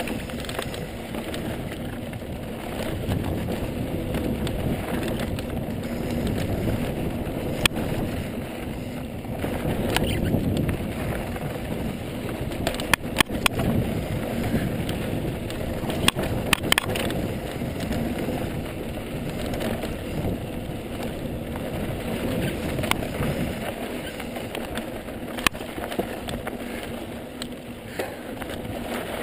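Ibis Mojo HD mountain bike riding down a dirt trail: steady tyre rumble and wind rush over the microphone, with sharp clicks and rattles from the bike now and then, two clusters of them near the middle.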